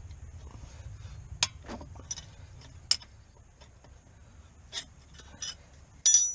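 Metal hand tools and parts clinking and tapping irregularly during tractor repair work, about six separate clicks with a louder ringing metal clink near the end.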